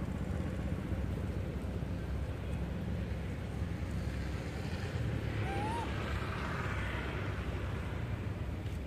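Steady low wind rumble on the microphone, with one brief rising-and-falling chirp about five and a half seconds in.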